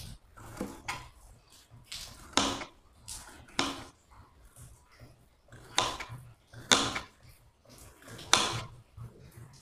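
Kitchen knife slicing a bitter melon into thin slices on a cutting board: about six crisp cuts, each ending in a knock of the blade on the board, unevenly spaced a second or two apart.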